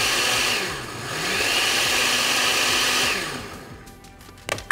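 Countertop blender motor running at speed as it blends a smoothie. It dips briefly about a second in and recovers, then is switched off and winds down about three seconds in. A short click comes near the end.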